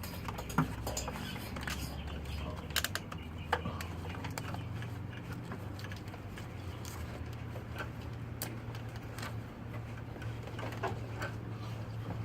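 Scattered light clicks and taps of hands working plastic glow plug wiring-harness connectors, over a low steady hum.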